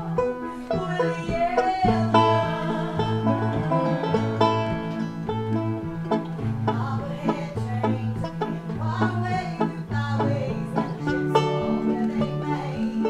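A woman singing a song live with piano accompaniment, over a bouncing bass line that alternates between two notes.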